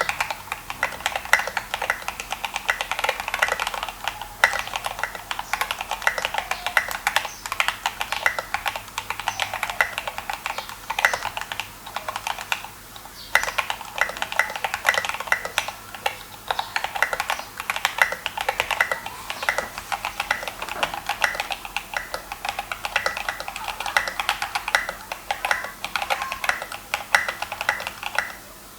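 Think6.5 v2 mechanical keyboard being typed on continuously in a typing sound test, with fast, dense keystrokes and a brief pause about 13 seconds in. The board is on its solder PCB modded with Millmax/Chillmax sockets for hotswap.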